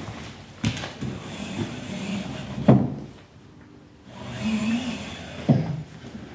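A few knocks and clunks from the fittings inside a horse trailer's saddle locker being handled, with the saddle rack moved on its mount. The loudest clunk comes near the middle and rings briefly.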